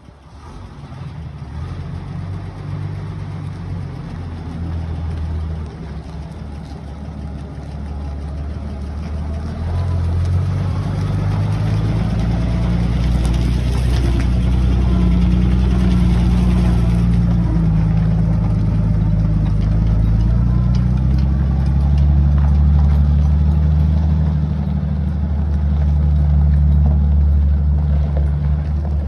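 1949 Dodge truck's flathead six engine running as the truck drives slowly past, getting louder over the first ten seconds or so and then staying loud, its note rising and falling with the throttle.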